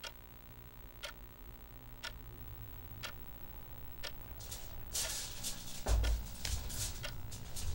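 Wall clock ticking, one sharp tick about every second. In the second half, softer noises and a low thump come in under the ticks.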